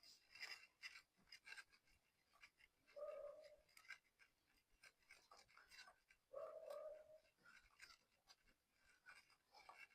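Faint scrubbing and scraping on a KTM Duke 390 motorcycle drive chain being cleaned by hand, an irregular run of small scratchy strokes, with a brief squeak about 3 seconds in and a longer one about 6.5 seconds in.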